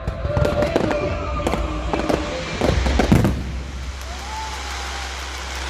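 Fireworks going off: a rapid run of bangs and crackles over the first three seconds, the loudest about three seconds in, then a quieter stretch with a low rumble.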